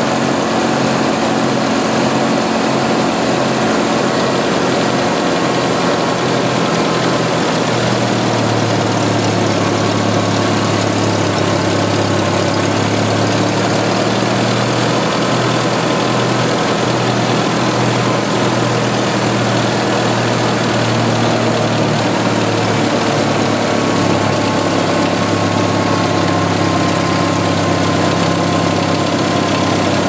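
1986 Jeep Cherokee's 2.5-litre four-cylinder engine idling steadily, its crankcase-ventilation vacuum leak just repaired, with the oil filler opening uncapped for a blow-by check. The idle note changes about eight seconds in.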